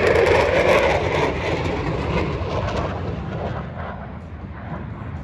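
Aircraft engine noise from a low pass, loudest at the start and fading steadily as the aircraft moves away.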